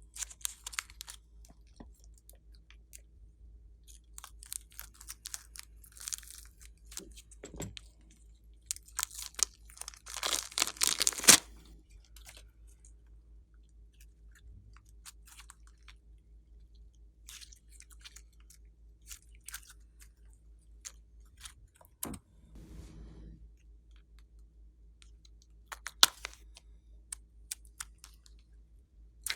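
Glossy slime being squished and kneaded by hand, giving sticky clicks and crackles that come in scattered bursts and are densest about ten seconds in.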